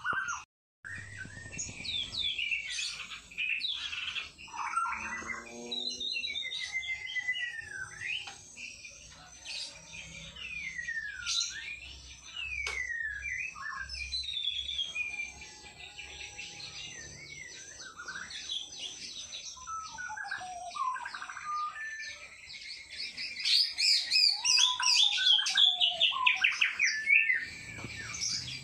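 White-rumped shama singing a long, varied song of clear whistles, sliding glides and chattering phrases, breaking into a loud, rapid run of repeated notes near the end.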